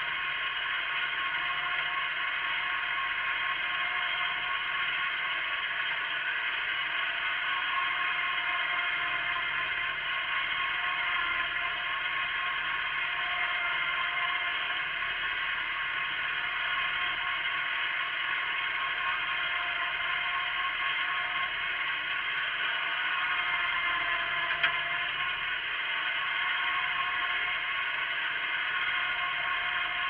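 Wheel Horse garden tractor running steadily under load as it pulls a plough through the soil: a constant mechanical whir with several steady high tones from the engine and drivetrain, and one sharp click near the end.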